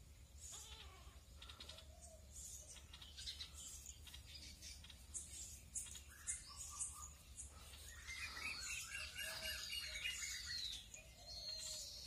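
Faint outdoor birdsong: repeated high chirps and whistles that grow busier in the second half, with downward-swept calls near the end. A pitched, bleat-like animal call rises under them about eight seconds in.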